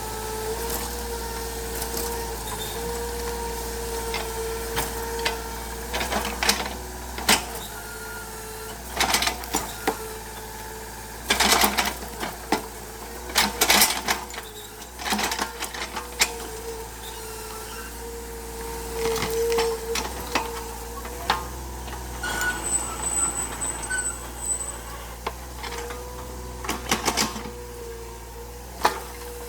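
Excavator engine running steadily, with irregular knocks and cracks as the machine works.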